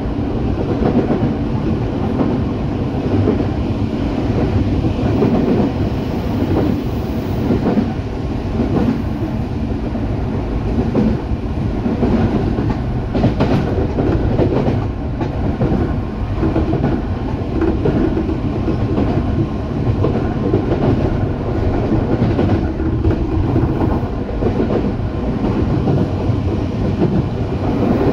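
Running noise of a Teito Rapid Transit Authority (Tokyo Metro) 8000 series train heard from inside the car: a steady, loud rumble of wheels on rails with a clickety-clack over the track.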